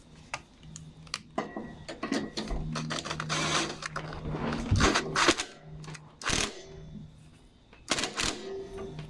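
Clicks, knocks and rattles of hands working a lawnmower's throttle control lever and cable while adjusting it, with a scraping stretch in the middle and a few louder knocks later on.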